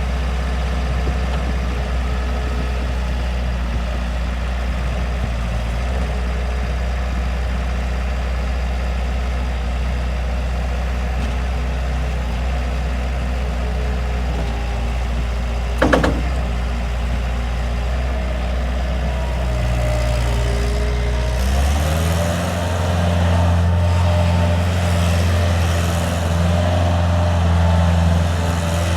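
Bobcat 751 skid steer's diesel engine idling steadily, then stepping up to a higher, steady engine speed about three-quarters of the way through. A single sharp knock about halfway through.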